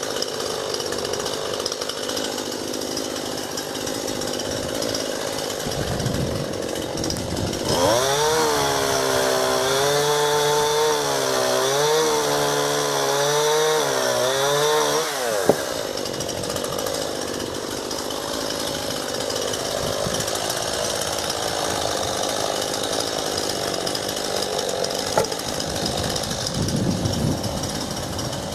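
Chainsaw running while cutting a fallen ash branch: about eight seconds in it is revved up hard for some seven seconds, its pitch wavering under load, then it drops back to a lower running note.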